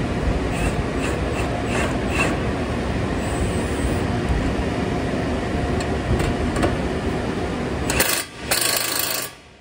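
Cordless impact wrench set to its second power mode, running steadily on a suspension nut, then stopping about eight seconds in, followed by one more short burst near the end.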